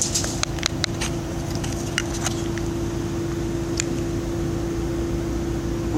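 A few sharp clicks and light taps of metal and plastic parts being handled, most of them in the first second, over a steady background hum.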